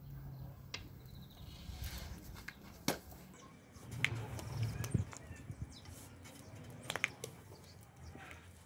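Wooden rolling pin working dough on a wooden board: a low rolling rumble about four to five seconds in, with a few sharp clacks scattered through.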